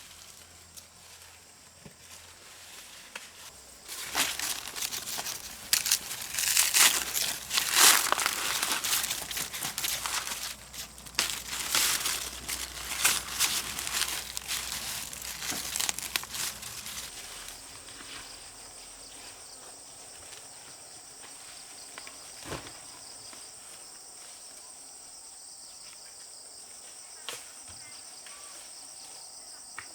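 Dry corn husks and leaves crackling and tearing in rapid, loud bursts for about twelve seconds, as the ears are handled and stripped. Then only a steady high insect trill is left, with a faint click or two.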